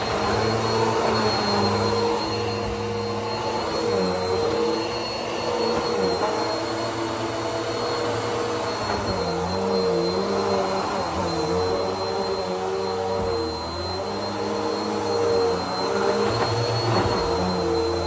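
Upright bagless vacuum cleaner running steadily with a high whine over its drone. Its pitch dips briefly and recovers every few seconds as it is pushed and pulled across the floor.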